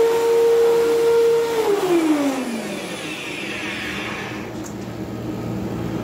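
Bagless upright vacuum cleaner's motor running with a steady whine, then spinning down in a smooth falling glide about a second and a half in as its power is cut, leaving a fainter rustling noise.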